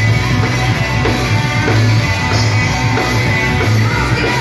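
Live rock band playing loud through the PA, drum kit and amplified instruments, heard from the crowd.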